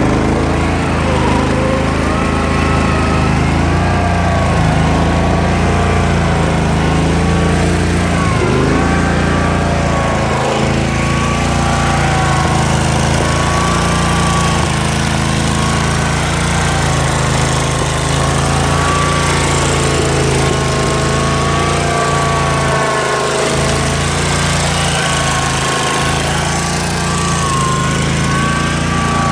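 Dixie Chopper zero-turn mower engine running steadily, with a higher whine over it that wavers slightly in pitch. The blade belt is off, so the blades are not turning.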